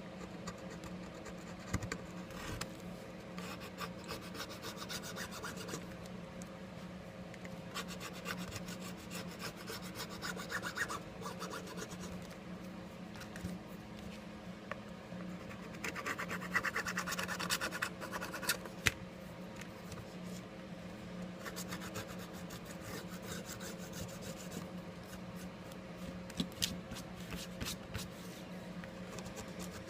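Small tool scraping and rubbing old adhesive and glass bits off a Galaxy S5 phone's frame: irregular scratching with scattered small clicks, busiest about two-thirds of the way through, over a steady low hum.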